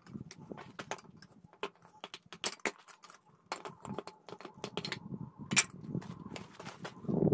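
Steel tongs clinking and knocking against a steel ingot mold as it is lifted off a freshly cast aluminum ingot: an irregular run of sharp metallic clicks and knocks, with a brief louder low thump near the end.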